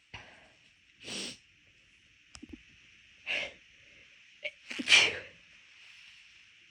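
A person sneezing three times in quick succession, about two seconds apart, the third sneeze, about five seconds in, the loudest and led by a short catch of breath. The sneezes are induced, coming easily with an already irritated nose.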